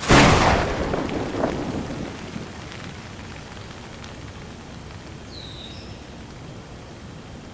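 Steady rain with a sudden thunderclap at the start, a sharp crack that rumbles away over about two seconds.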